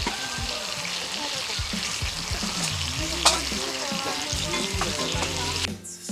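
Food sizzling as it fries in a pan, with a single sharp tap about three seconds in. The sizzle cuts off shortly before the end.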